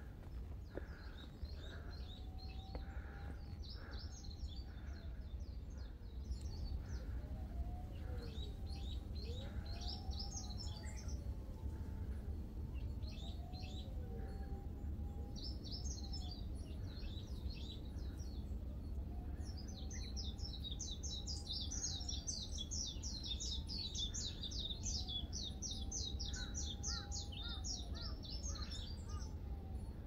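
Wild birds singing: scattered high chirps, then a long fast trill in the last third, with smooth lower whistles that rise and fall every few seconds, over a steady low rumble.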